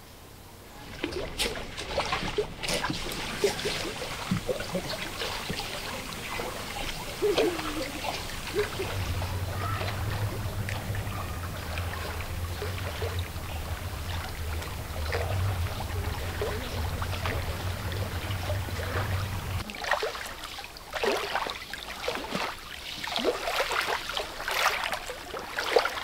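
Small waves lapping and splashing irregularly onto a pebbly sea shore. A steady low hum runs under the water for about ten seconds in the middle.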